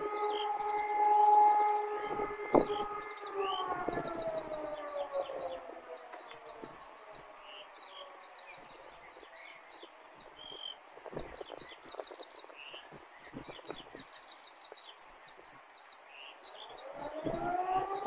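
Civil-defence siren sounding a test alarm: a steady wail of several tones that winds down in pitch and fades from about three seconds in, then starts rising again near the end. Birds chirp throughout.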